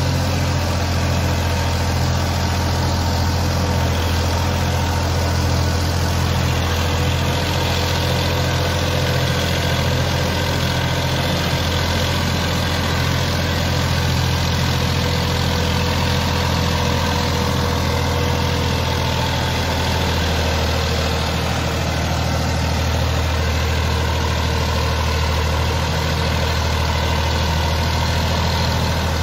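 Massey Ferguson 9500 tractor's diesel engine running steadily as it pulls a three-bottom reversible mould board plough through the soil.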